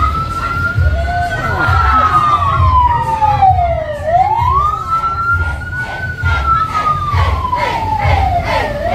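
Siren wailing: each cycle rises quickly and then falls slowly, repeating about every four seconds, over a low beat about twice a second.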